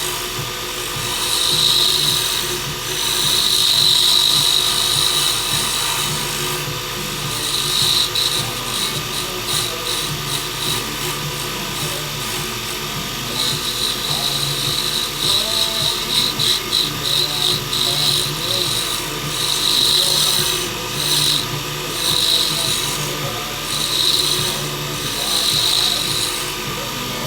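Wood lathe running steadily while a dyed, stabilized burl pen blank is cut down on it, the tool scraping against the spinning wood in repeated passes of a second or two each.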